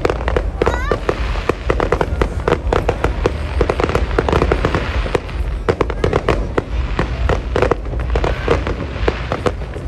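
Fireworks going off in rapid succession: a dense run of overlapping bangs and crackles with no break.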